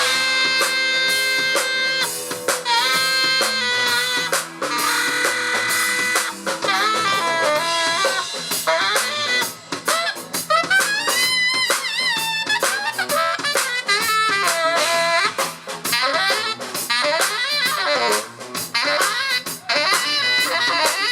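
Live band playing: a saxophone carries the lead line with bent and wavering notes over a drum kit.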